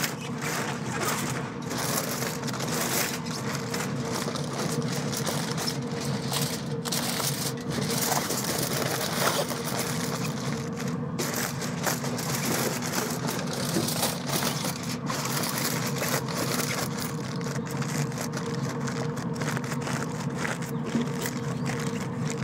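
Aluminium foil crinkling and rustling as it is folded and pressed tightly around a rack of ribs in a foil pan, over a steady mechanical hum.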